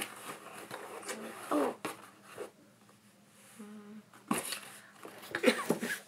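Cardboard box and its packing being rustled and handled in irregular bursts of scraping and knocking, the loudest near the end.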